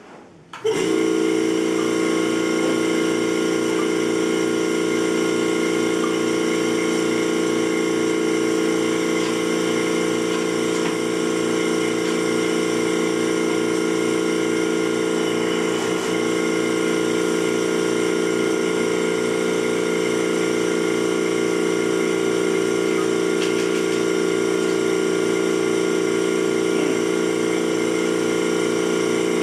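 Vacuum pump switched on about a second in and running steadily, a steady hum with a fast even pulsing under it, as it pulls a vacuum on a pen-blank stabilizing chamber.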